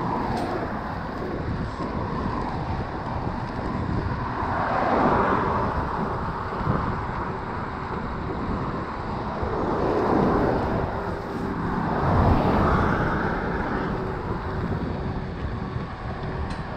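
Wind rushing over the microphone of a moving e-mountain bike, along with its plus-size tyres rolling on the trail. The rushing swells louder a few times, around five, ten and twelve seconds in.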